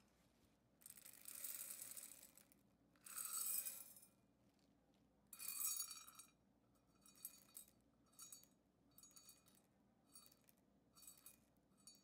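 Dry soybeans poured into a ceramic bowl on a kitchen scale, rattling and clinking in three short pours. Then a string of brief faint clicks as a few beans at a time are dropped or moved, weighing the beans out.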